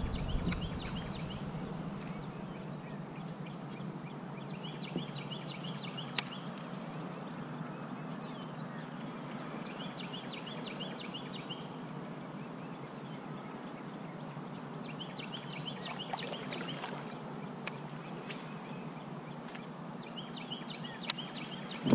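A songbird singing short trilled phrases again and again, a few seconds apart, over a steady low outdoor background noise. A sharp click comes about six seconds in and another near the end.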